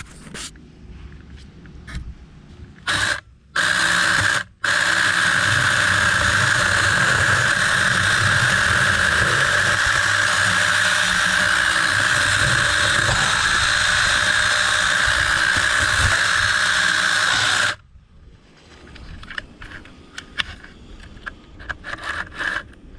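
Mini electric chainsaw, given two short blips of the trigger, then running steadily for about thirteen seconds with a high whine while cutting into a branch, and stopping suddenly. Light rustling and steps follow.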